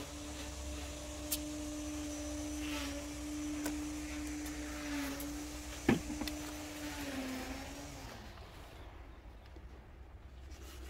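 A steady mechanical hum at one pitch, wavering slightly and dipping before it fades out about eight seconds in, over a low rumble. A sharp click near the middle is the loudest moment.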